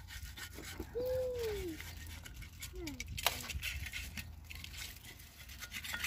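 Old water-pump gasket being prised and peeled off the pump mounting face of a Ford 3000 tractor engine: light scratching and small clicks of a screwdriver and fingers on the gasket and metal. About a second in, a short call falling in pitch stands out over it, and a shorter one follows near three seconds.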